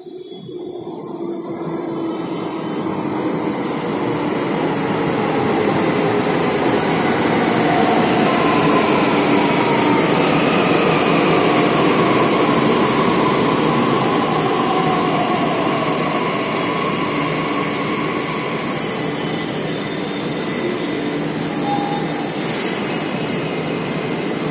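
Delhi Metro train running into the station and braking to a stop, growing louder over the first several seconds, with a whine that glides down in pitch as it slows. Near the end a high steady tone sounds and a short hiss follows as the doors open.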